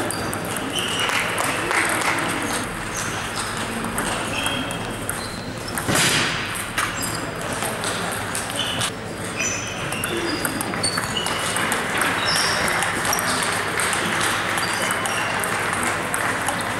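Table tennis balls clicking off bats and tables: many short pings scattered irregularly from several tables at once, over a steady murmur of voices.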